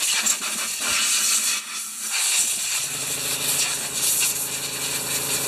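Compressed air hissing from a blow gun in uneven bursts as it blows fluff out of a mower engine's air-filter housing. About three seconds in, a steady machine hum with a fixed pitch starts underneath the hiss.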